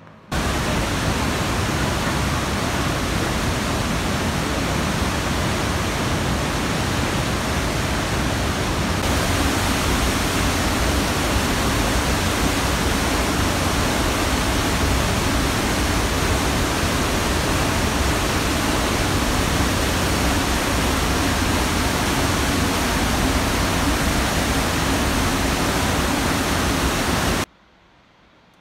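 Waterfall plunging through a narrow rock gorge: a loud, steady rush of falling water that starts abruptly and cuts off about a second before the end.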